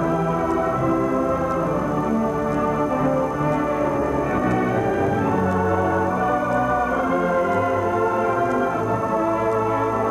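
Organ music playing held chords that change about every half second to a second.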